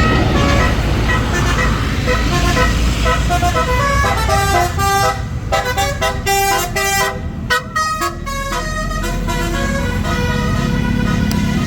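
Tour bus's basuri musical horn (telolet) playing a fast tune of short stepped horn notes, over the low rumble of the bus's engine.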